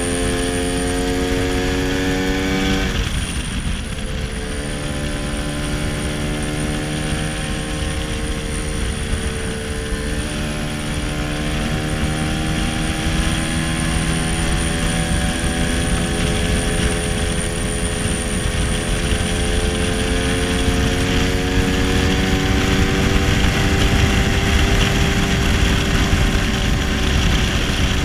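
A 1966 Lambretta SX 225 scooter's single-cylinder two-stroke engine running on the move, over wind and road noise. Its note drops sharply about three seconds in as the throttle comes off, then climbs slowly and steadily as the scooter picks up speed.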